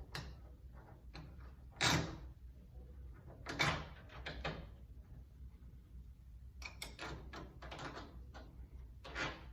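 Metal deadbolt hardware on a door being handled as its mounting bolts are fitted: scattered sharp clicks and knocks, with a quick run of small clicks about two-thirds of the way through.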